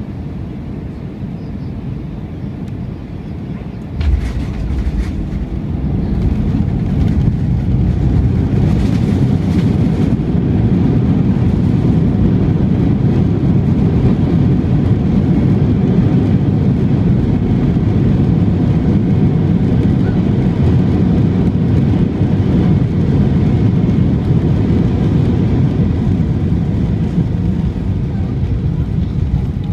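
Airliner heard from inside the cabin on landing: a sudden thump about four seconds in as the wheels touch down on the runway, then the engine roar swells and stays loud as the jet decelerates, typical of reverse thrust and braking during the landing rollout.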